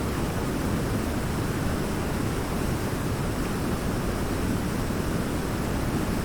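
Waterfall: a steady, even rush of falling water, heaviest in the low range, with no change in level.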